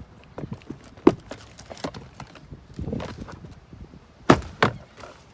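A 2014 Ford Fiesta's glove box being pushed back into the dash and clipped in: plastic knocks and thunks with some rustling, one sharp knock about a second in and two more close together near the end.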